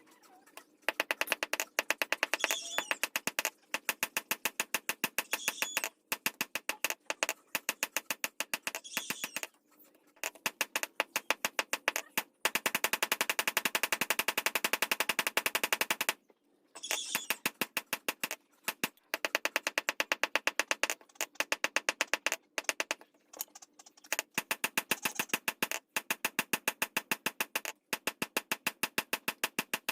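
Rapid, even strikes of metal on metal, about ten a second, in runs of a few seconds with short pauses: fast light hammering on a blade at a blacksmith's anvil.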